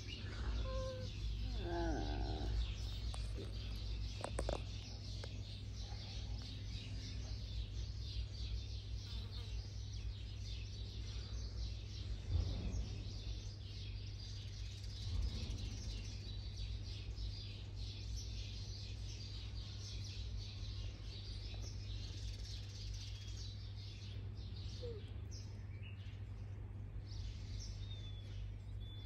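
Small birds chirping and calling, with a few clearer warbled calls in the first few seconds and short chirps near the end, over a steady low rumble.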